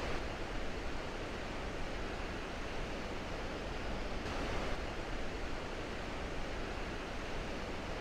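Sahalie Falls on the McKenzie River: the steady rush of falling water, an even, unbroken noise.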